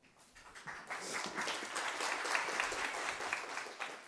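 Audience applauding, swelling over the first second and dying away near the end.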